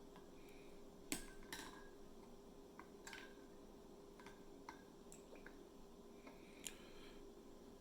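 Faint scattered clicks and light taps of a disassembled fountain pen's plastic parts being handled, over a faint steady hum.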